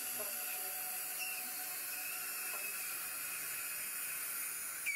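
Surgical suction tip drawing air and fluid from the mouth: a steady hiss with a faint wavering whistle.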